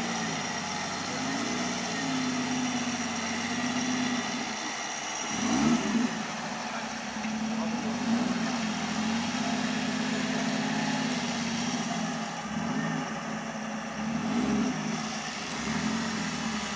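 Off-road 4x4's engine running, its pitch rising and falling again and again as the throttle is worked, with the loudest rev about five to six seconds in.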